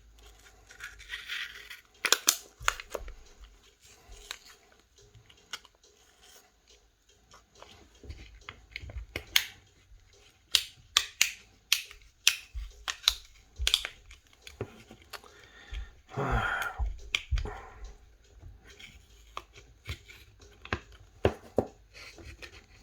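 Cracked back glass of a Samsung Galaxy S6 Edge being pried and picked off: irregular sharp clicks, ticks and crackles of glass shards and tools. A short sound falling in pitch comes about sixteen seconds in.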